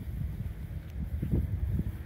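Wind buffeting the microphone in uneven gusts, heard as a low, fluttering rumble.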